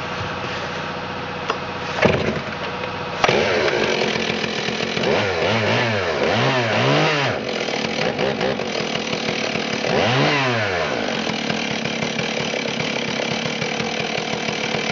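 Stihl 038 Magnum II chainsaw's 72cc two-stroke engine running at idle, blipped up and down in three quick revs around the middle and once more a few seconds later, then settling back to a steady idle. It runs well.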